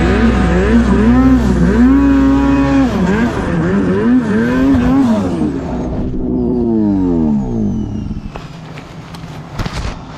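Arctic Cat snowmobile engine revving up and down again and again in deep powder, then dropping in a long falling whine about six seconds in as the revs die away. This is typical of a sled bogging down and getting buried. A few faint knocks follow.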